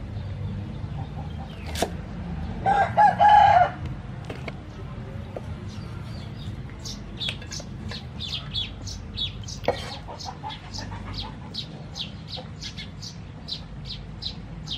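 A rooster crows once about three seconds in, the loudest sound. Around it come a few sharp chops of a cleaver through water spinach onto a wooden chopping block. From about halfway there is a quick run of short, high ticks, two or three a second.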